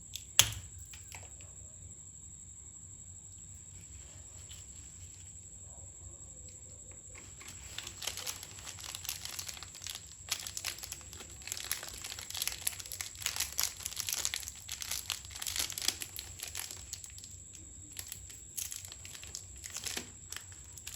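Plastic snack packet being crinkled and torn open: a single sharp click near the start, then from about seven seconds in a long run of quick, irregular crackles.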